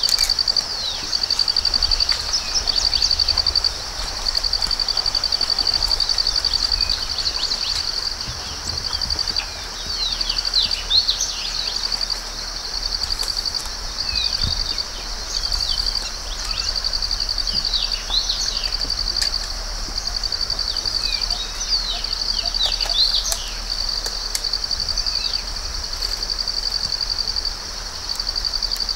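Outdoor nature ambience: a high-pitched insect drone, trilling in repeated phrases, with birds chirping on and off through the middle.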